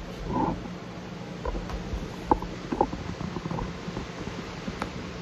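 Handling noise from a phone being moved about: a low rumble on the microphone with scattered light knocks and clicks, over a faint steady hum.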